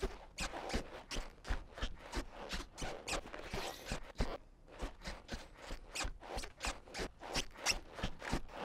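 Baymax, the animated inflatable vinyl robot, waddling forward: a run of short squeaking, padding footsteps and body rubs, several a second.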